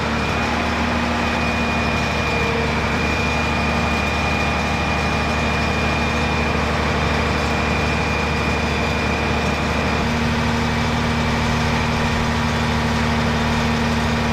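Heavy military vehicle's diesel engine idling steadily, with a thin high whine held over it. The engine note shifts about ten seconds in.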